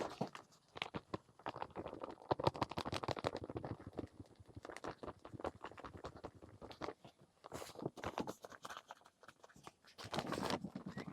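Diatomaceous earth being scooped with a measuring cup and poured into a plastic cement-mixing tub: irregular scraping and gritty crackling, with a louder burst near the end.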